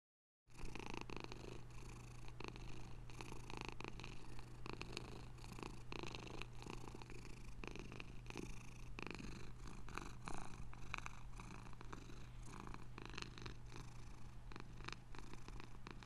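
Domestic cat purring steadily, starting about half a second in.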